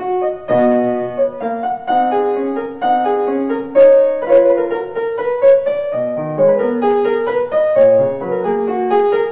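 Piano playing a melody with chords, a few notes a second.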